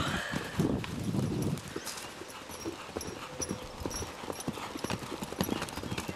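Hoofbeats of two horses cantering loose on grass turf, an irregular run of thuds that is loudest in the first second or so as one horse passes close.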